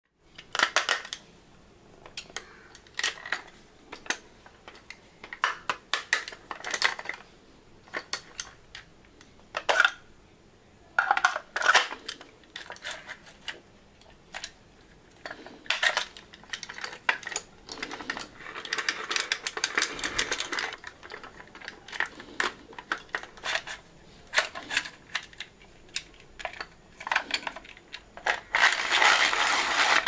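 Scattered plastic clicks and knocks from a hand-cranked pencil sharpener being handled and turned over. Near the end the crank is turned with a pencil in it, giving a steady grinding as the pencil is sharpened.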